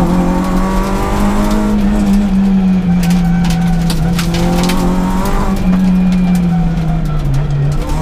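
Peugeot 106 S16 rally car's 1.6-litre sixteen-valve four-cylinder engine at high revs, heard from inside the cabin. Its pitch rises and falls with the throttle through the bends and drops briefly near the end. Sharp clicks and knocks sound through the middle.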